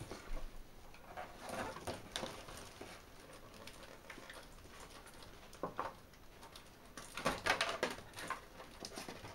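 Figure parts and packaging being handled off to the side: light rustling and small clicks, with a louder cluster of rustles about seven seconds in.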